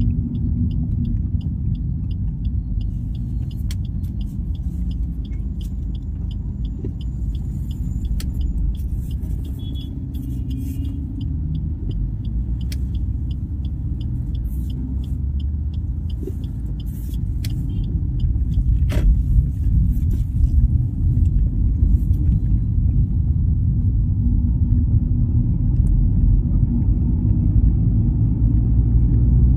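Vehicle driving in traffic: a steady low engine and road rumble. A faint, evenly spaced ticking runs about three times a second and stops about two-thirds of the way through.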